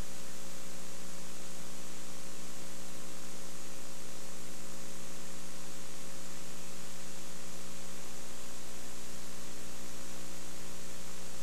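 Steady electrical mains hum with an even hiss over it and no change: background noise on an old videotaped broadcast soundtrack.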